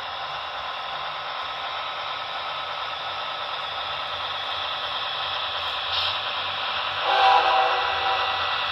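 Approaching freight train, a Norfolk Southern intermodal led by diesel-electric locomotives, as a steady hissing rumble. About seven seconds in the lead locomotive's air horn sounds a chord of steady tones, and a second blast begins near the end.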